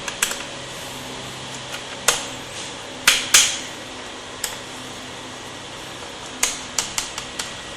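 Small screwdriver clicking against the base-panel screws of a Dell Inspiron 15 3521 laptop as they are undone: scattered sharp clicks, with a quick run of several near the end, over a steady low hum.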